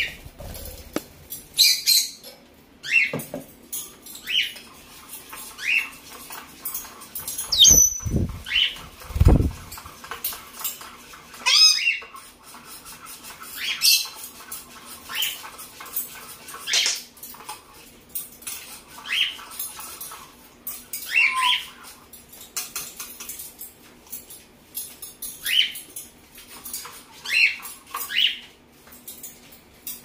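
African grey parrot giving a string of short chirps, clicks and squawks, a few gliding up or down in pitch, with two dull low thumps about eight and nine seconds in.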